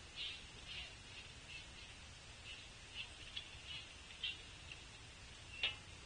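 Small birds giving short, high chip calls, one or two a second at uneven intervals, with one sharper call near the end, over a faint low background rumble.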